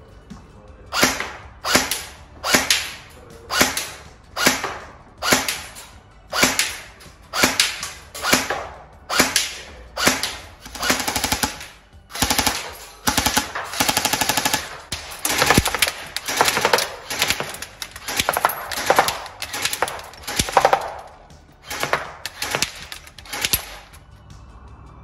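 Tokyo Marui M4 CRW high-cycle electric airsoft gun firing: a string of short shots about one a second, with longer full-auto bursts of rapid clatter in the middle.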